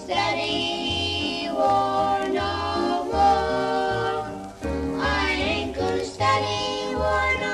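Music: a children's song with young voices singing over accompaniment, with a bass line that changes note about every half second.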